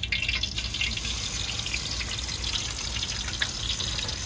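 Loitta (Bombay duck) fish pieces deep-frying in hot oil in a karahi on a gas stove: a steady crackling sizzle that grows brighter about a second in as another piece goes into the oil.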